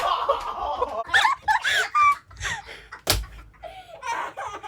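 Excited laughing and squealing voices in bursts, with one sharp smack about three seconds in.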